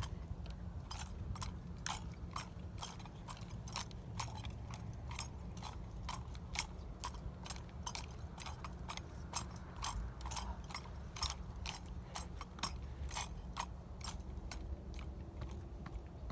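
Rifle drill team doing silent drill: a rapid, irregular run of sharp slaps and clacks as hands strike the rifles during spins and manual-of-arms movements, thinning out near the end.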